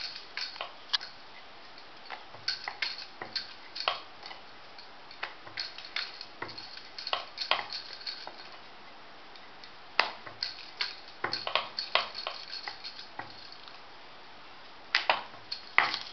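Irregular clicks and clinks from a wooden rolling pin working a sheet of besan dough on a wooden rolling board, with the glass bangles on the rolling wrist jingling against each other and the pin. There is a short quieter pause about two seconds before the end.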